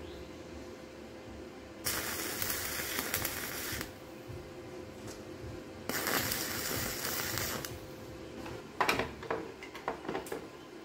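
Electric arc welding on 1/4-inch stainless steel rods: two welds of about two seconds each, each starting and stopping abruptly. Several sharp metal clinks follow near the end.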